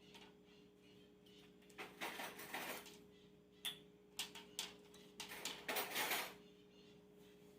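Handling noises: two spells of scraping and rustling and a few sharp clicks, over a steady low hum.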